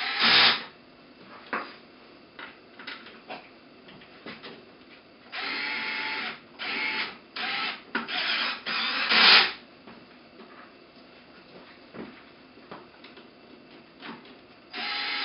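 Power screwdriver driving screws into a small turbine housing in short whirring bursts, a cluster of them about five to nine seconds in, with light clicks and taps of metal parts between.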